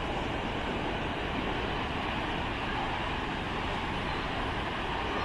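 Gale-force wind blowing hard across the microphone: a steady rushing noise with a flickering low rumble.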